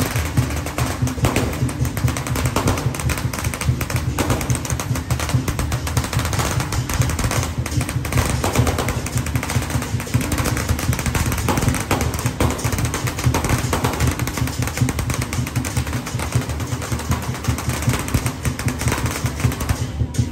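A long string of firecrackers going off in a dense, continuous rapid crackle, with music beneath it. The crackle stops near the end.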